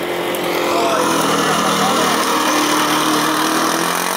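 Formula Student race car's combustion engine revving hard as the car accelerates through a cone course. The pitch climbs over the first second, then holds high and loud.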